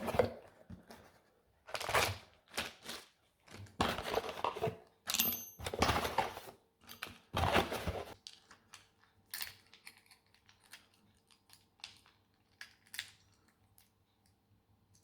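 Cardboard box and plastic packaging being handled while the drill-chainsaw attachment kit is unboxed. For about eight seconds there are repeated rustling, crinkling and tearing sounds, then lighter scattered clicks and taps as the parts are handled.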